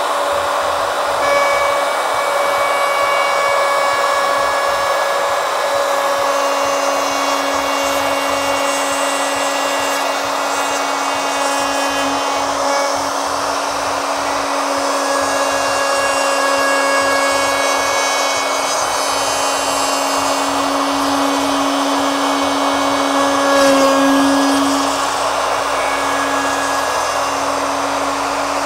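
Electric plunge router running steadily at speed, its bit routing a fin-box slot in a polyurethane foam surfboard. A constant whine that briefly swells a little louder about 24 seconds in.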